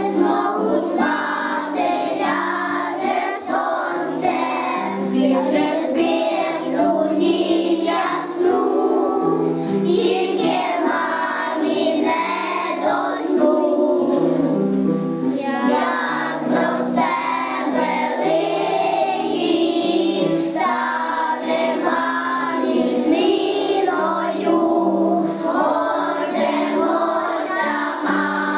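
A group of kindergarten-age children singing a song together in unison, with musical accompaniment.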